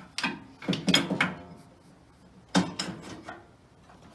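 Rod being pushed through a row of washers and hood parts, clinking and knocking: a quick cluster of sharp knocks in the first second and a half, and one more about two and a half seconds in.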